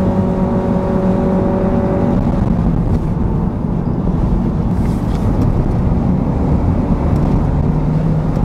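Cabin sound of a Honda Civic Hybrid under way on a wet road: the engine's steady drone, held at one speed by the CVT, fades about two seconds in. Dense tyre and road rumble with spray hiss runs throughout, and the drone comes back near the end.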